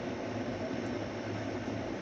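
Steady hiss with a low hum underneath, even throughout, with no thunder or other distinct event.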